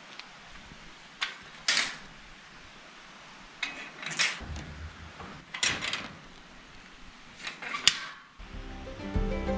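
A steel wire-mesh gate clanking and rattling in several short bursts as its metal lever latch and bolt are worked by hand. Acoustic guitar music comes in near the end.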